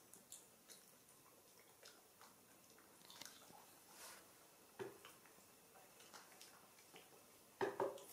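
Faint soft chewing and small clicks of a young macaque eating boiled banana, with a brief louder knock near the end.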